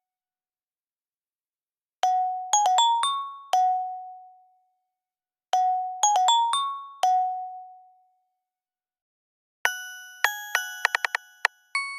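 Microsoft Surface Duo alert tone: a short phrase of quick bell-like notes ending on one longer, fading lower note, played twice about three and a half seconds apart. Near the end a different, brighter tone starts, a fast run of ringing chime notes.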